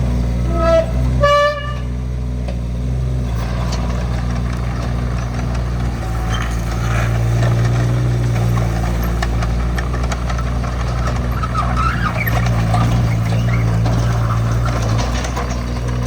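The small three-cylinder diesel engine of a Kubota KX015-4 mini excavator running steadily. About a second in come two short beeps, the second higher. From about three seconds in there is a rattling mechanical clatter over the engine.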